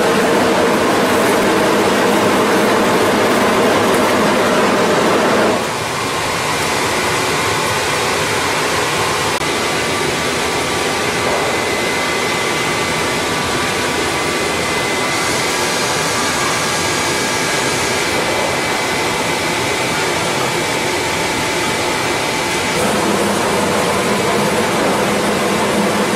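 Steady noise of factory machinery running in a molded wood pallet plant, with faint steady whining tones over a broad rumble. The sound changes suddenly about five and a half seconds in, turning slightly quieter, as the glue mixing station gives way to the hydraulic pallet presses; a higher hiss joins briefly in the middle.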